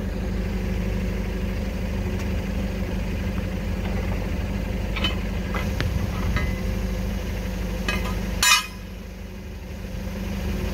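Toyota forklift engine idling steadily, with a few light metal clanks from a battery compartment cover being opened and handled about five to six seconds in, and a single sharp, louder clack near the end.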